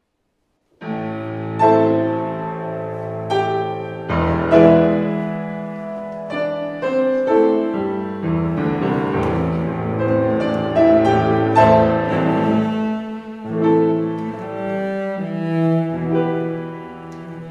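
Cello and grand piano playing a classical piece together, the music starting about a second in after silence.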